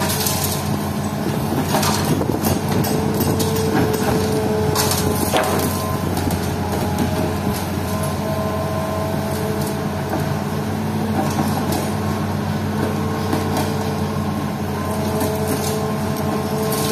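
Hitachi Zaxis excavator's diesel engine running steadily under load, with a hydraulic whine that comes and goes as the demolition pulverizer works. Sharp cracks of concrete and brick breaking in the jaws come a few times in the first six seconds.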